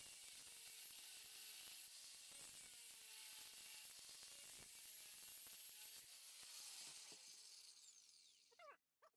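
Angle grinder grinding seams into a square steel bar, a faint steady high whine and hiss, then switched off and winding down about seven to eight seconds in. A couple of short squeaks follow at the very end.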